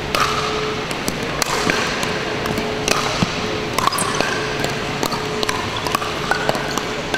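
Pickleball paddles striking a hard plastic ball in a fast rally at the net, an irregular series of sharp pops, with short sneaker squeaks on the hardwood court between hits.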